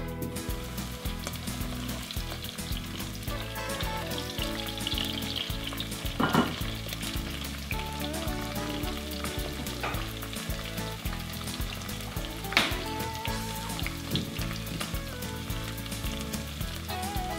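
Chopped onions sizzling as they fry in oil in a cast-iron pot, stirred with a spatula. Two sharp knocks stand out, one about six seconds in and another about six seconds later.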